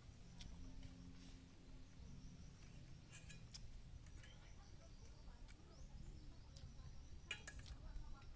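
A few faint clinks of a metal spoon against a stainless steel bowl, in two pairs, about three seconds in and again near the end.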